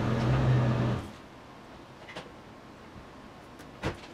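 A loud, steady, low mechanical hum, like a motor or engine running, that cuts off abruptly about a second in. After it, faint clicks and one sharp knock near the end as hands work along a car door's top edge.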